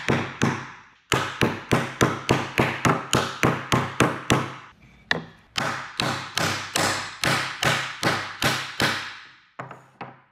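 Wooden mallet striking a board, driving a half-blind dovetail joint together: sharp knocks in quick runs of about three blows a second, with a few short pauses.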